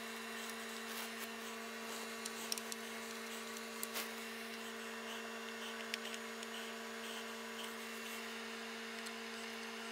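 A steady low hum made of two even tones, with a few faint ticks.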